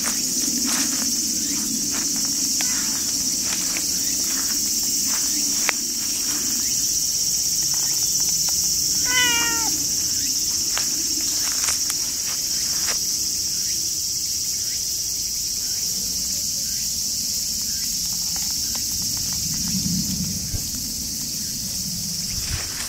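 Steady high-pitched drone of insects, with light rustles and clicks in the grass. About nine seconds in, a cat gives one short meow.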